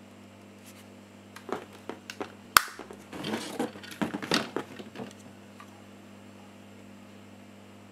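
Clicks and rattles of a VFC HK417 gas blowback airsoft rifle's lower receiver being handled and its fire selector lever switched, with one sharp snap about two and a half seconds in and a burst of smaller clicks for the next two seconds. A faint steady hum lies underneath.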